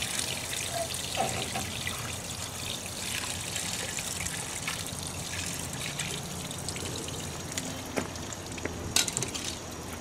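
Water trickling and dribbling onto wet concrete, with a few sharp ticks near the end.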